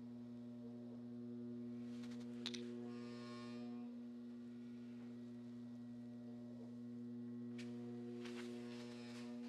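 Steady electrical hum with a few evenly spaced overtones, unchanging throughout. Short rustling and scraping sounds come about two seconds in and again near the end.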